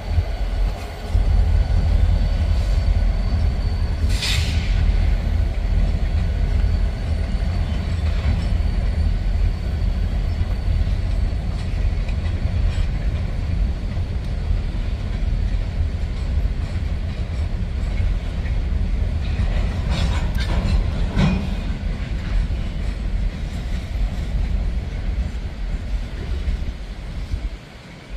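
Freight train rolling slowly past: a steady, heavy rumble of the cars and wheels on the rails. A few short sharp sounds cut in, about four seconds in and again around twenty seconds in.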